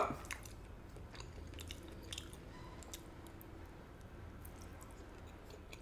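Faint chewing of a grilled chicken skewer, with soft, scattered clicks of the mouth.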